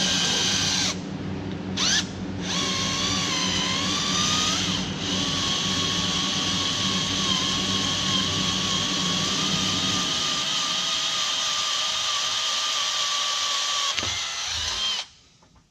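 Cordless drill boring a hole in a metal hatch hinge, its motor whine wavering in pitch under load. It eases off briefly twice about a second in, then runs on and stops near the end.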